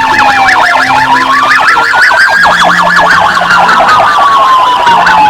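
Police car siren: a fast warble over a slow wail that falls, rises and falls again, cutting off suddenly at the end.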